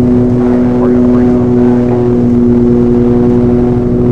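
Twin piston engines and propellers of a Piper Aerostar Superstar 700 running at high power during a high-speed runway run, heard from inside the cabin as a loud, steady drone with a strong hum.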